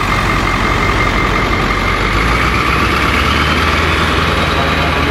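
An engine running steadily, a low hum with a high whine over it that rises slightly in pitch midway.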